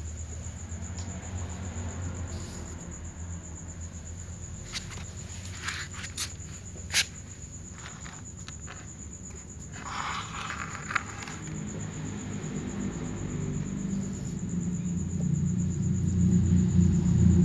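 A steady, high insect trill of night insects runs over a low rumble that grows louder toward the end. A few sharp clicks come about five to seven seconds in, and a brief crunch about ten seconds in, while the ginger cat noses at crumbs on the tray.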